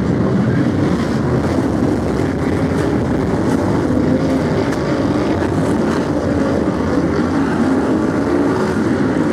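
A pack of Brisca F1 stock cars' V8 engines running at racing speed, a loud continuous din whose pitch wavers as the drivers lift and rev.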